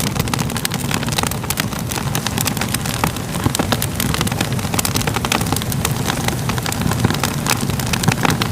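Crackling fire: a steady low rumble of flames with frequent irregular sharp crackles and pops.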